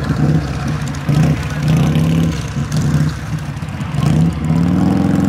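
Vehicle engine running close by, its pitch wandering up and down and climbing about four seconds in.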